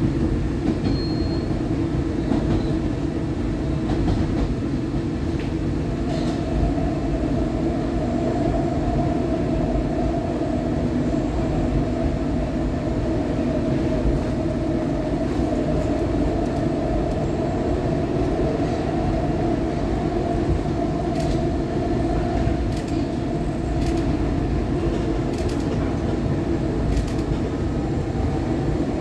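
A SEPTA Adtranz M4 rapid-transit car running along the track, heard from inside: a steady heavy rumble of wheels and running gear. A steady tone joins about six seconds in, and a few sharp clicks come in the second half.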